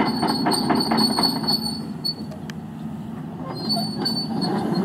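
Steel crawler tracks of a Hyundai 160LC-7 excavator squealing and clanking in a fast, even rhythm as the machine travels, over the steady rumble of its diesel engine. The clanking eases off midway and picks up again near the end.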